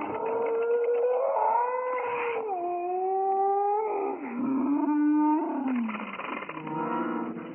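Long, drawn-out yawning voice whose pitch steps down in several held notes over about six seconds, ending in a rougher, breathy stretch.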